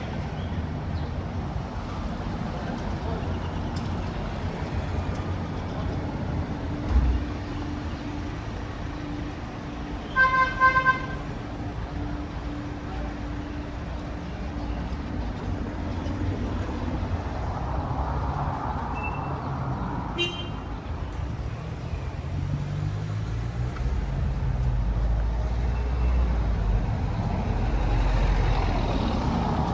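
Street traffic with a vehicle engine running, and a vehicle horn tooting twice in quick succession about ten seconds in. The low engine rumble grows louder near the end, as if a vehicle passes close by.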